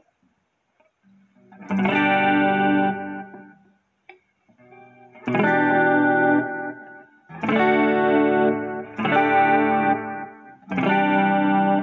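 Electric guitar chords from a Firefly FF-338 semi-hollow guitar played through a chorus effect. Five chords are struck, each left to ring and fade, with a longer gap after the first.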